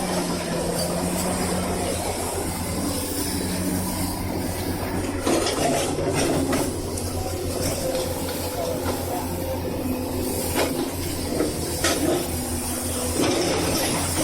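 Excavator engine running steadily with a low pulsing hum, while the single-shank ripper works the ground, giving a few sharp knocks and some scraping.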